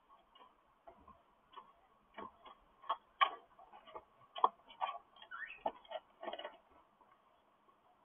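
Cockatiel digging and shuffling in wood-shaving nest litter inside a wooden nest box: an irregular run of scratches and sharp clicks, loudest about three and four and a half seconds in, dying away near the end.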